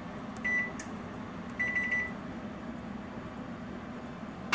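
Oven control panel beeping as its timer buttons are pressed to set the bake timer: a single short beep about half a second in, then a quick string of beeps about a second later, over a steady low hum. A sharp click comes at the very end.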